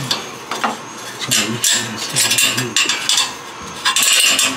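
Metal rod of a magnetic pickup tool scraping and clinking against the exhaust header as it fishes for a dropped valve-cover hold-down bracket, in several short bursts, the loudest about four seconds in.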